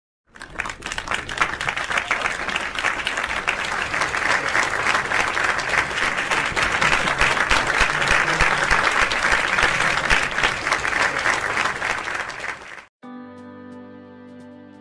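Crowd applause that starts just after the beginning, swells to a peak midway, then cuts off abruptly about thirteen seconds in. Soft sustained background music follows.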